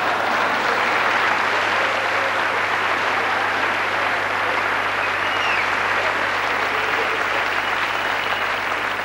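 Theatre audience applauding, a steady dense wash of clapping.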